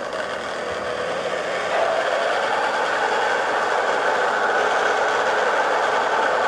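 Countertop blender running, puréeing cooked rice and stock into a smooth rice cream. The motor's whir builds over the first couple of seconds, then holds steady.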